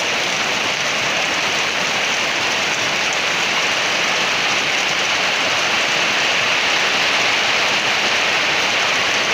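Rain falling on tree leaves: a steady, even hiss.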